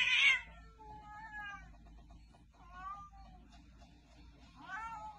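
A domestic cat hissing sharply, then giving three drawn-out, wavering yowling meows: a defensive cat warning off a larger animal.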